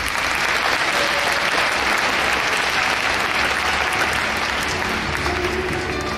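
Audience applauding steadily at the end of a rhythmic gymnastics routine.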